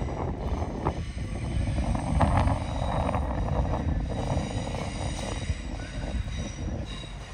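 Train running on the rails, a steady rumble with several thin, high steady tones over it, swelling louder about two seconds in.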